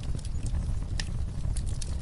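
Wood fire crackling in a fireplace: a steady low rumble with frequent small pops and clicks, and one louder pop about halfway through.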